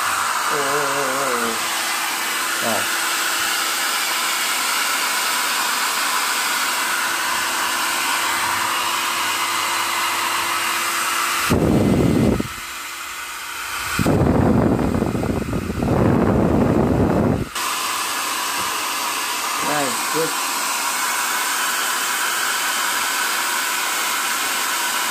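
Nova NHP 8100 1200-watt hair dryer, its casing opened, running on mains power: a steady rushing blow of air over a faint steady hum from its small DC motor and fan. About halfway through, the sound turns louder and deeper for about six seconds, dipping briefly in the middle, then settles back to the steady rush.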